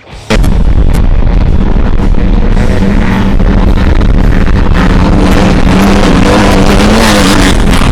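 Loud rock music soundtrack that comes in abruptly a moment in and then plays on steadily.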